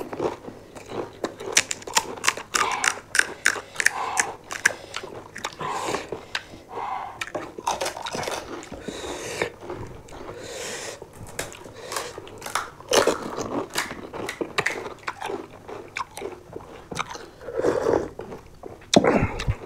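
Crisp, hollow panipuri shells being cracked open and crunched while being eaten, with chewing between many short, sharp crackles.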